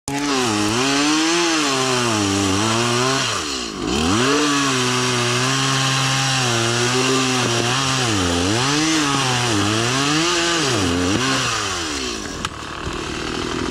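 Two-stroke gas chainsaw bucking a thick fallen tree trunk at full throttle, its engine note repeatedly sagging and recovering as the chain bogs under load in the cut. Near the end the high revs drop away as the saw comes off the throttle.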